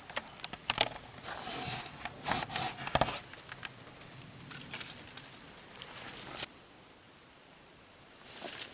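Rustling with scattered light clicks and knocks, busiest in the first three seconds, which cuts off abruptly about six and a half seconds in. A rustle rises again near the end.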